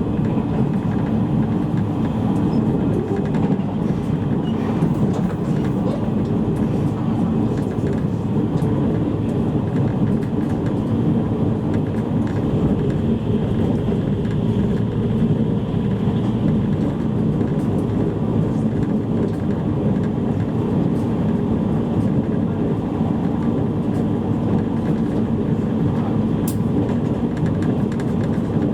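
Steady running noise inside a JR East E653 series electric train's motor car at speed: a continuous low rumble of wheels on rail and running gear, with no stops or changes.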